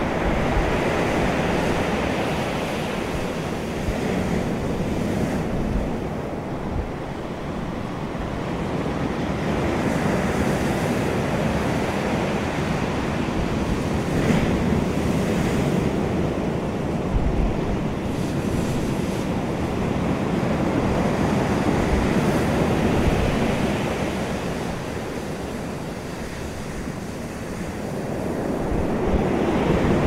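Ocean waves breaking and washing back over a pebble beach, a continuous surging wash that swells and falls back every several seconds, with a faint clicking of stones in the backwash.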